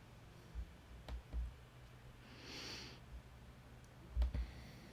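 A faint, single breath, a soft hiss lasting under a second midway, with a few sharp clicks of a computer mouse before and after it over a low steady hum.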